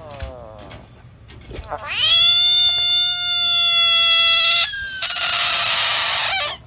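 A cat yowling: a short falling meow, then a long, loud, steady cry that breaks into a harsh, raspy wail and cuts off suddenly.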